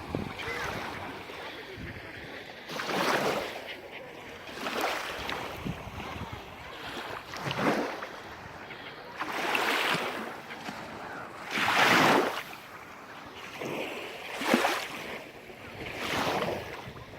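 Small sea waves breaking and washing on the shore, one swell every two seconds or so.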